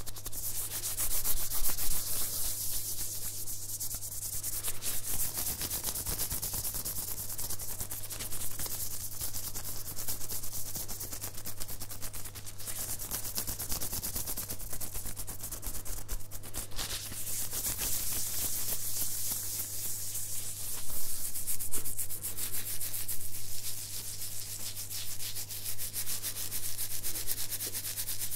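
Bare hands rubbing together close to the microphone: a continuous dry swishing hiss of skin on skin that swells and eases with the strokes.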